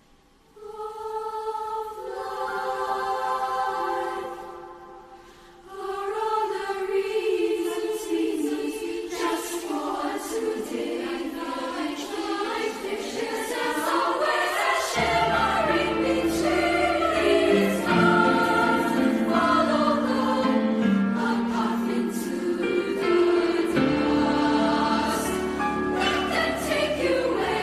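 Mixed-voice school choir singing, entering out of near silence, breaking off briefly about five seconds in, then carrying on fuller and louder, with low held notes under the upper voices from about halfway.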